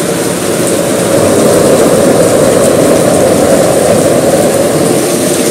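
Propane forge's side-arm burner running at about 4 to 5 PSI: a steady, loud rushing noise of the gas flame firing the forge, a little louder from about a second in.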